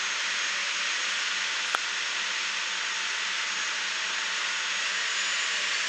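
Steady rushing of wind and water on the deck of a moving river ferry, with a low steady hum underneath and a single small click about two seconds in.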